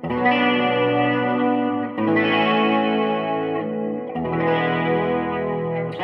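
Electric guitar chords ringing out through a guitar amp raised off the floor on a block of wood, a new chord struck about every two seconds.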